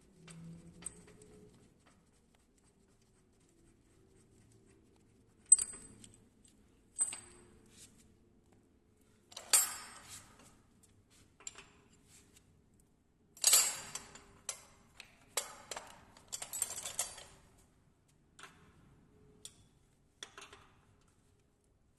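Steel mold parts and hand tools clinking and knocking against the machine while the mold is dismantled: scattered sharp clicks with a few short bursts of metallic rattling, the busiest about ten and fourteen seconds in.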